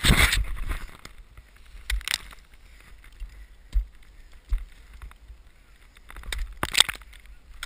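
Snow sluff avalanche pouring down over an ice climber: a rush of sliding snow and ice at the start that dies away within about a second. Scattered sharp knocks and scrapes of gear and ice follow, and a second, smaller rush comes near the end.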